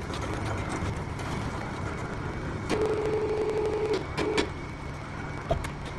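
A steady low mechanical hum, with an electronic beep tone that sounds for about a second around the middle, is followed by a short second beep. A single knock comes near the end.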